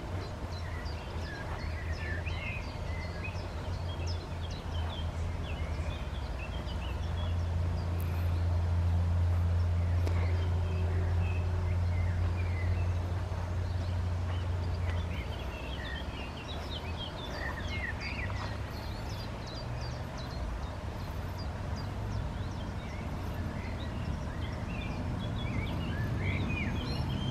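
Small songbirds chirping and twittering on and off throughout, over a steady low rumble that grows louder for several seconds in the middle.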